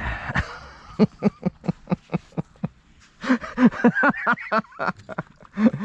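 A person laughing in a row of short quick bursts, then more voice, talk or laughter, a second or so later.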